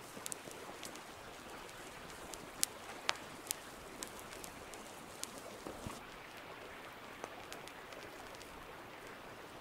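Resin torch burning: a steady soft hiss with scattered sharp crackles and pops, the loudest few between about two and a half and four seconds in.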